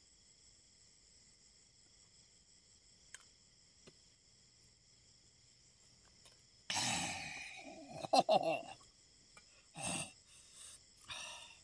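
Night chorus of crickets and other field insects, a steady shrill trilling at several pitches. A few brief louder noises break in from about seven seconds on.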